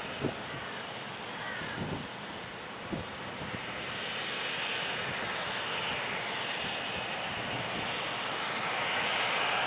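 The CFM56-7B turbofans of a taxiing Boeing 737-800 give a steady jet whine and rush that grows louder in the second half as the airliner rolls closer. A few brief low thumps come in the first three seconds.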